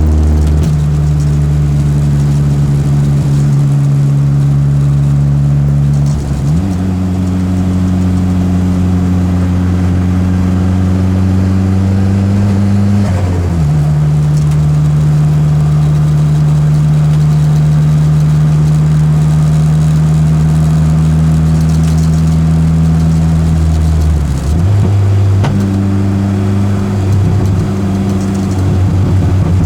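Peugeot 205's engine running hard at fairly steady revs, its pitch stepping down about half a second in, up at about six seconds, down again at about thirteen seconds and up again near twenty-five seconds.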